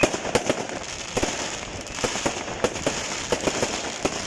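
Fireworks going off: an irregular run of sharp cracks and bangs, about a dozen, over a steady crackling hiss.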